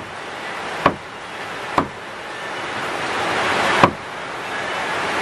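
Three sharp knocks, at about one, two and four seconds in, as pieces of wild boar meat and bone are handled in a metal bowl, over a steady hiss of rain.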